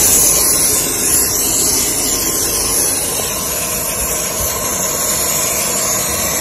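Hand-pump pressure foam sprayer spraying cleaning foam in a steady hiss.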